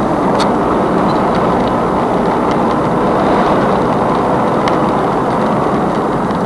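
4x4 vehicle driving, a steady engine and tyre noise, with a few light clicks or rattles.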